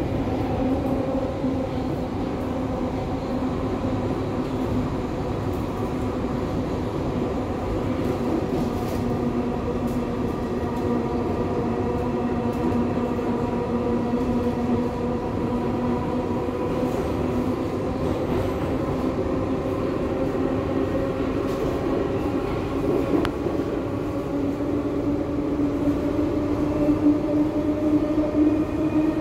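R62A subway train heard from inside the car while running at speed: a steady whine over the rumble of wheels on the rails. Near the end the whine climbs in pitch and the sound gets louder as the train speeds up.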